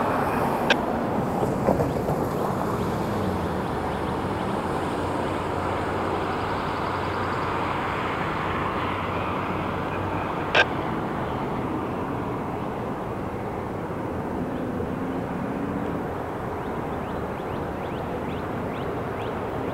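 Diesel freight locomotives approaching with a steady low engine drone and rumble. A sharp click sounds about a second in, and a louder one near the middle.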